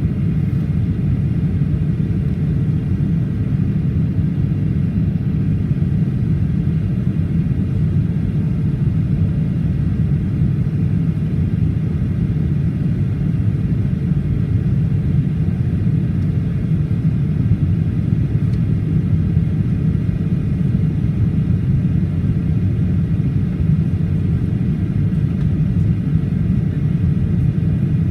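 Steady cabin rumble of a Boeing 737-800 in flight, airflow and its CFM56 engines, heard from a window seat, with a faint steady high whine over it.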